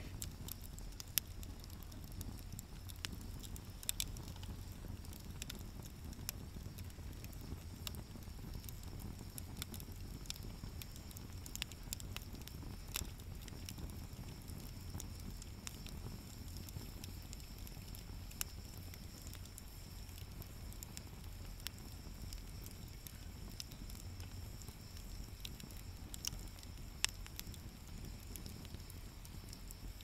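Wood fire burning in a camping fire stand, crackling with irregular sharp pops and snaps over a low, steady rumble.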